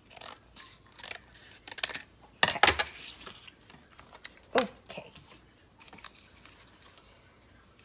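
Scissors cutting strips of paper: a few short, sharp snips, the loudest cluster a little before three seconds in. A brief squeak falling in pitch follows about four and a half seconds in.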